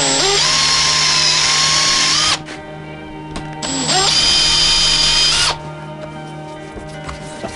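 Cordless drill driving a thin bit through a wooden strip into wood twice, each run lasting about two seconds. Each run starts with a quick rising whine as the motor spins up, then holds a steady whine.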